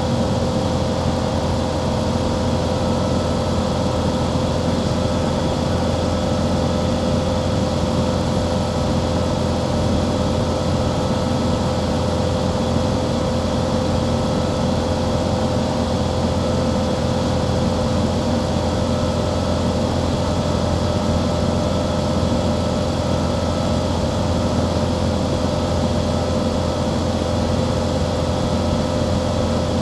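Light airplane's engine and propeller droning steadily in a climb, with a constant low hum and a steady mid-pitched tone.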